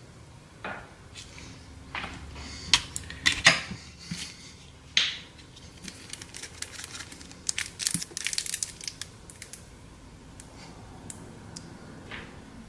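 Kitchen handling sounds: scattered sharp clicks and crinkling from a disposable aluminium foil pie pan and a plastic squeeze container as caramel is spread and drizzled. The loudest clicks come in a cluster a few seconds in, and a dense crackly stretch follows about halfway through.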